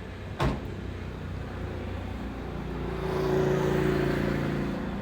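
A single sharp knock about half a second in, then a motor vehicle engine running steadily, growing louder from about halfway through and easing off near the end.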